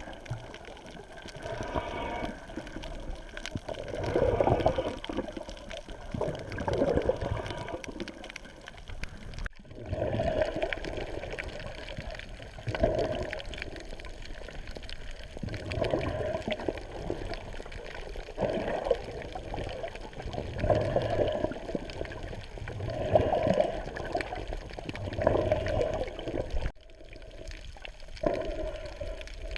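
Water sloshing and splashing in repeated surges about every two to three seconds, broken by two abrupt drop-outs, one about a third of the way in and one near the end.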